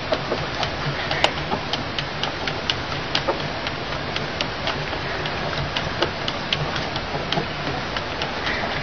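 Light, irregular ticks, a few a second, as a rooster moves about on a bicycle wheel laid flat on a post, over a steady hiss.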